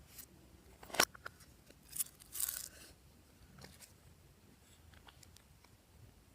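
Slime being worked by hand, with a few sharp sticky clicks about one and two seconds in and a short crackle just after the second.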